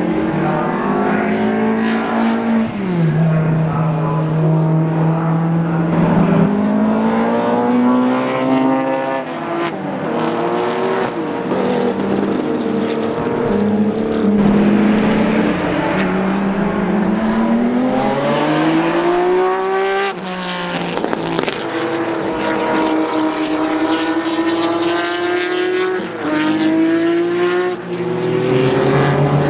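Historic racing cars' engines running hard as the cars come through corners and pass one after another. The revs climb in long rising sweeps and drop back sharply, with a loud rising run that breaks off suddenly about twenty seconds in.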